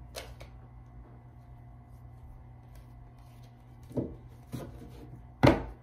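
Tarot deck being handled: cards faintly rubbing as they are slipped back into the deck, then the deck knocked on the tabletop to square it, with two soft taps about four seconds in and one sharp, louder knock near the end.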